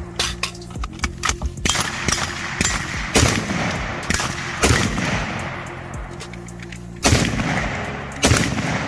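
Gunshots from a short-barrelled 11.5-inch AR-15-style rifle fired shot by shot at uneven intervals, each with an echoing tail; a quicker run of fainter cracks comes in the first two seconds.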